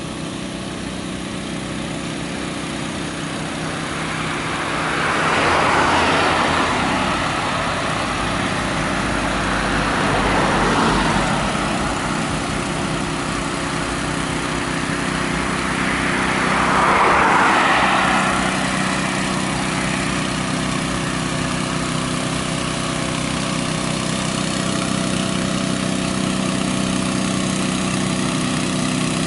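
Heavy water-tanker truck's engine running steadily at crawling speed, growing a little louder as it approaches. Road traffic passes three times, each pass a swell of noise that rises and fades.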